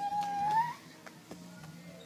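A child's high, drawn-out call that slides upward in pitch and breaks off under a second in, followed by faint yard background.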